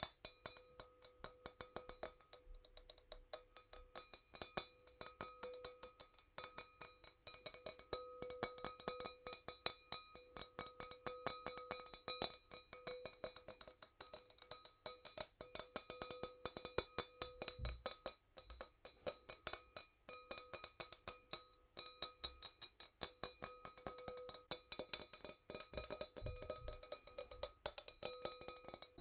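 Fingernails tapping rapidly and gently on a tiny wine glass, several taps a second. Each tap rings briefly at the same bright pitch.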